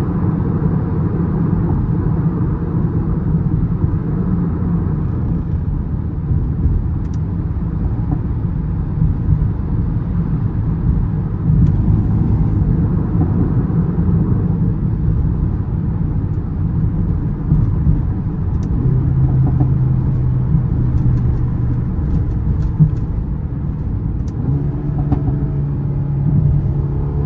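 Mercedes-AMG A35's turbocharged 2.0-litre four-cylinder engine running while the car drives on the road, a steady engine drone over tyre and road rumble. The engine note drops about two-thirds of the way through and rises again near the end.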